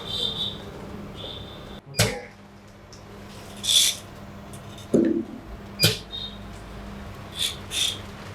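Workbench handling noises: a few sharp clicks and knocks with short high-pitched beeps over a steady low electrical hum.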